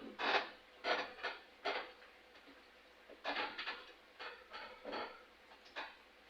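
Ratchet wrench clicking in short irregular bursts, a few strokes at a time with pauses between, as the carburetor's mounting bolts are run in on a small mower engine.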